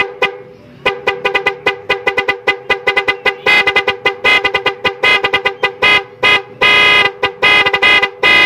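Electric vehicle horn pulsed by a Nhay 3+ Pro Music horn flasher module: a rapid string of short staccato toots, several a second, the trucker-style horn pattern it is made to play. After a brief lull near the start the toots pick up again, and from about three and a half seconds in longer blasts break into the fast beeps.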